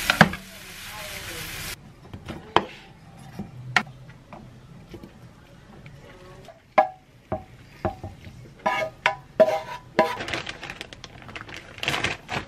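Stir-fry sizzling in a frying pan as it is stirred with a spatula, cutting off suddenly about two seconds in. Then a run of scattered knocks, scrapes and clinks of the spatula, pan and dishes as the food is served out.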